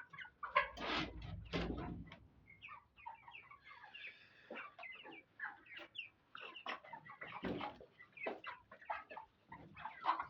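A flock of young chickens, about six weeks old, clucking and calling in short scattered notes, with a louder stir among them in the first couple of seconds.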